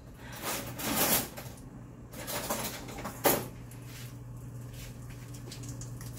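Rustling and clattering of things being handled, with one sharp knock a little over three seconds in, over a steady low hum.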